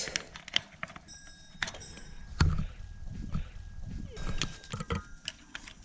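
Scattered light clicks and clinks of an electric-fence gate handle's metal hook being unhooked and handled against its plastic grip and insulator, with a few soft thumps of steps on grass.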